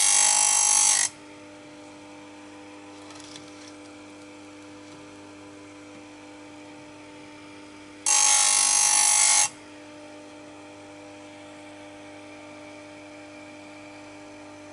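Stihl USG chain grinder's motor running with a steady hum, while its grinding wheel is brought onto a saw-chain tooth twice, each grind a loud hiss lasting about a second.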